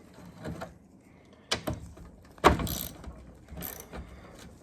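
Hand tools clicking and knocking on a rusted steel windshield frame: four sharp knocks about a second apart, the loudest about halfway through, the last two followed by short scrapes.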